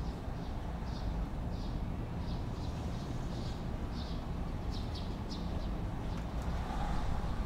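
Residential street ambience: a steady low rumble of distant traffic, with a small bird chirping over and over, a short chirp about every half second. The traffic grows a little louder near the end.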